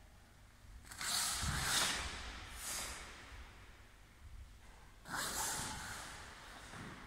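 Sharp, forceful exhalations and gi swishes from karate students performing a kata together, one burst with each technique: a longer one about a second in, a short one near three seconds, and another just after five seconds.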